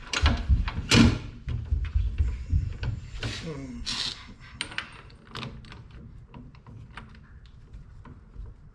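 Irregular knocks and clicks of tools and parts being handled at a drill press, busiest in the first few seconds and then thinning to scattered taps.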